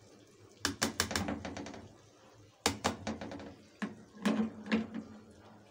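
A plastic slotted spatula scraping and knocking against a metal frying pan as it tosses thin-cut potato sticks, in three short clusters of clicks.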